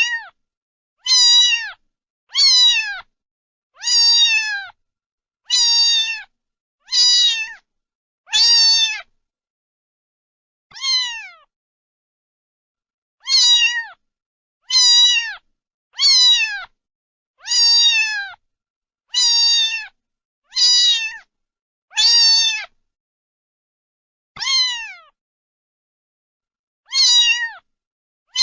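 A domestic cat meowing over and over, about one meow every second and a half, each a short call that falls in pitch. The meows pause twice for a few seconds.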